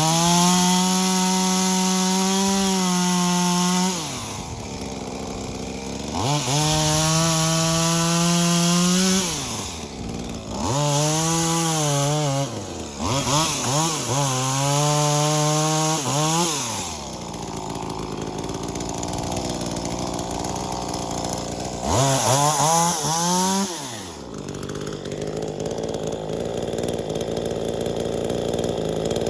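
V-Modest 2511T, a clone of the Echo 2511T two-stroke top-handle chainsaw, revved to full throttle and held there for about three seconds at a time, then dropped back to idle, several times over with a couple of quick blips in between. It idles through the last few seconds.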